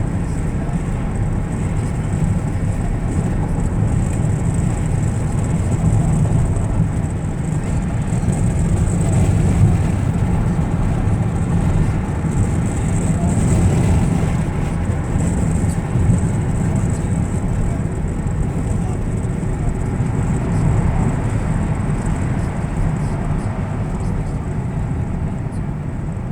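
Steady road and engine noise inside a moving car's cabin: a low, even rumble.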